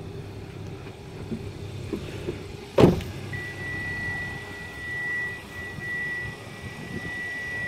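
2011 Hyundai Sonata idling with a steady low hum. About three seconds in, its door shuts with one sharp thump, and then a steady high tone holds on.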